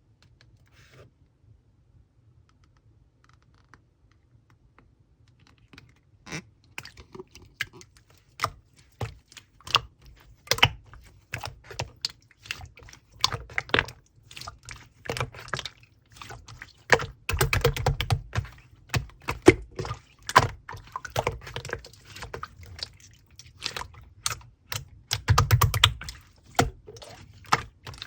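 Slime being squeezed and poked by hand, making a dense run of sticky clicks and small pops that starts about six seconds in after a quiet opening. A couple of heavier, duller squishes come near the middle and again near the end.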